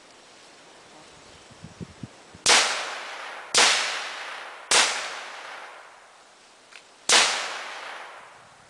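Four gunshots, the first about two and a half seconds in, the next two about a second apart and the last after a longer pause, each trailing off in a long echo.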